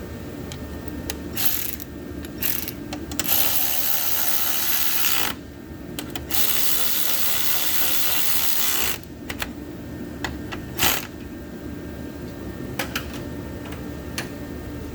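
A hand tool driving the coolant overflow bottle's 10 mm bolts back in: two runs of rapid mechanical ratcheting, a few seconds each, with scattered clicks and knocks of metal and plastic around them.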